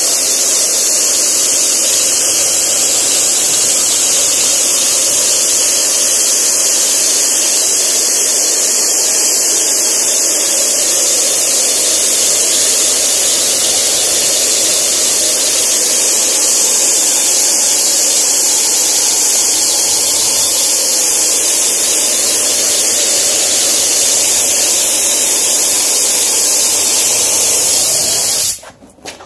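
Compressed-air top-load spray gun hissing steadily as it sprays diluted paint. The high hiss stops abruptly near the end.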